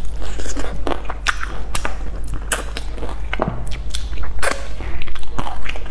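Close-miked eating of sauce-glazed fried chicken: chewing and biting with many sharp, wet mouth clicks and lip smacks, several a second, and finger licking in the second half.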